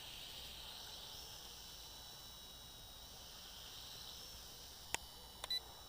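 Small quadcopter's motors and propellers whining at a distance, a high wavering hum whose pitch shifts a little as it flies. A few sharp clicks come near the end.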